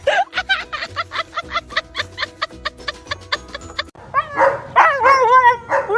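Upbeat background music with a steady beat. It cuts off about four seconds in, and a dog starts howling in long calls that rise and fall in pitch.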